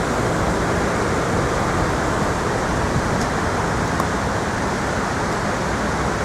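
Steady rush of falling water from the 9/11 Memorial's South Pool waterfall, an even noise with no break.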